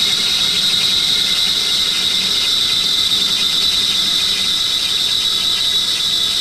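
A steady high-pitched squeal over a constant hiss.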